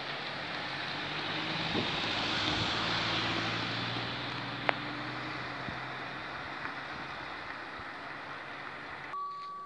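Steady vehicle rumble that swells a couple of seconds in and slowly fades. Half a second before the end, the level crossing's electronic warning bell starts ringing.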